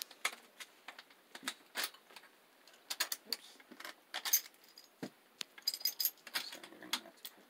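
A wrench and small metal bicycle parts clinking and jangling together as they are handled, with many quick, irregular metallic clicks.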